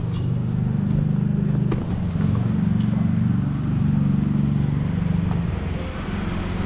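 A motor vehicle's engine running close by, a low pulsing rumble that swells and eases a few times.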